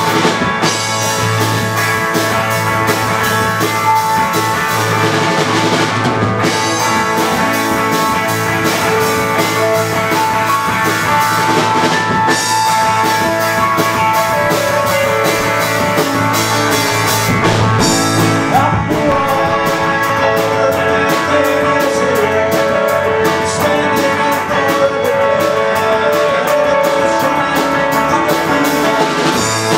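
Live rock band playing: drum kit, hollow-body electric guitar, electric bass and keyboard, with a man singing. The drums keep a steady cymbal beat that is busiest in the second half.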